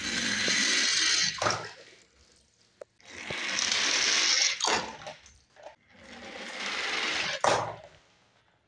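Three die-cast toy cars rolling down a ramp one after another, each run a rolling rattle lasting a second or more that ends in a splash into a tub of water.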